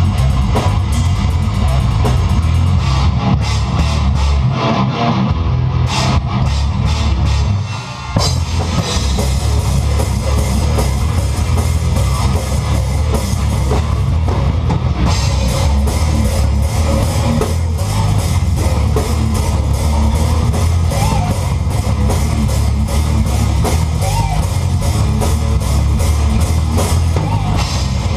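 Death metal band playing live: distorted electric guitars and bass over a full drum kit. After a sparser passage the music drops briefly about eight seconds in, then the drums come back with rapid, evenly spaced cymbal hits.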